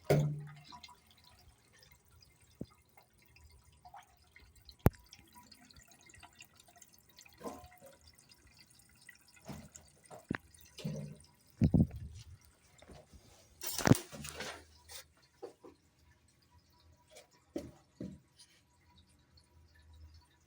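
Water dripping in irregular drops, with a sharp click about five seconds in and a few louder splashes or knocks about twelve and fourteen seconds in.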